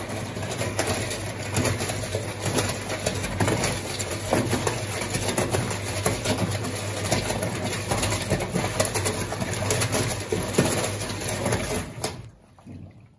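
Hajdú Energomat Komfort washing machine's drum turning under its motor in a wash stroke, a steady hum with churning noise that starts abruptly and stops about twelve seconds in.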